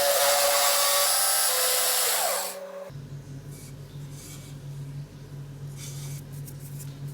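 Wood being sanded with a powered tool: a loud, steady, gritty rasping hiss with a motor whine in it, which dies away and stops about two and a half seconds in. After that comes a quieter low hum with a few faint short rubbing strokes.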